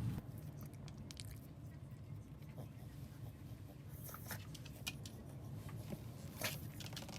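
Scattered faint clicks and taps over a low steady hum, two of them sharper about four and six and a half seconds in.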